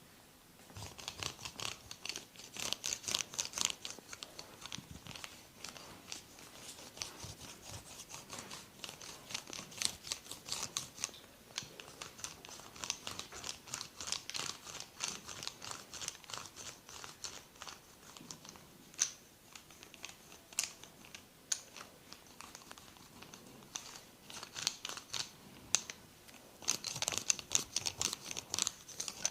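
Massage hands rubbing and working over oiled skin: stretches of fast, crackly rubbing strokes, with a few lone clicks in a sparser stretch past the middle.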